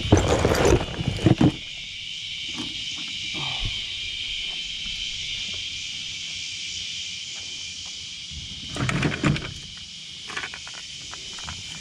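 Loose hardware and odds and ends clattering as they are handled in a pickup's toolbox, in two short bouts: one at the start, one about nine seconds in. Under it runs a steady high-pitched buzz.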